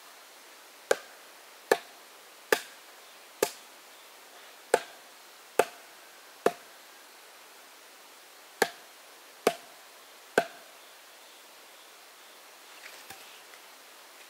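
Wood being chopped with an axe: ten sharp strokes a little under a second apart, seven in a row, then a short pause and three more.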